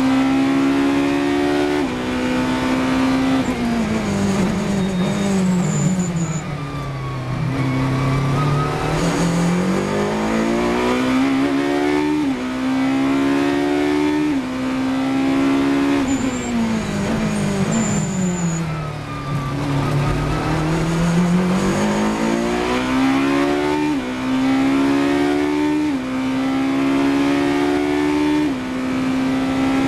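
Ferrari 458 Italia GT3's V8 engine heard on board at racing speed: loud, revving up and dropping back with each quick upshift. Twice the revs fall away smoothly to a low pitch for a few seconds, then climb again through the gears.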